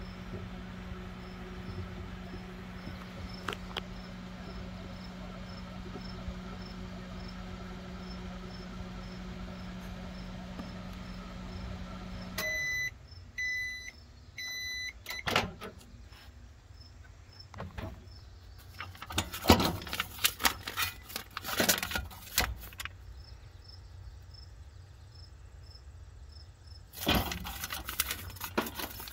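Furrion RV microwave running with a steady hum, a unit that runs but does not heat, then beeping three times as its countdown ends about twelve seconds in. A click follows as the door opens, then the crinkling of a microwave popcorn bag being handled.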